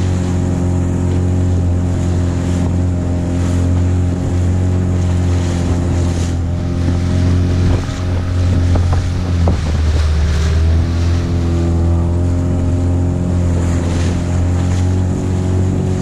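Small fishing boat's engine running steadily under way, over the rush of water and wind. About nine seconds in its note drops briefly, then comes back up to the same steady pitch.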